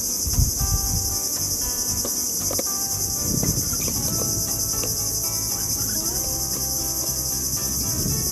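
Steady high-pitched chorus of insects, a continuous even buzz that does not change. A few low bumps and rustles from handling, shortly after the start and again about three seconds in.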